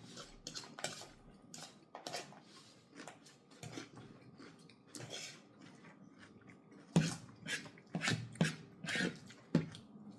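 Close-up chewing and mouth sounds of eating chicken drumsticks: irregular wet clicks and smacks, louder and more frequent in the last few seconds.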